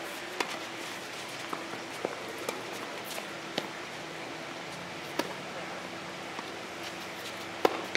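Tennis ball struck by rackets and bouncing on the court: a scattered series of sharp pops, the loudest near the end, over a steady faint hum.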